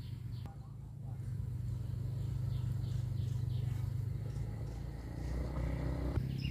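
Motorcycle engine running at low speed as the bike rides slowly closer, growing louder near the end, with a repeated high chirping in the background.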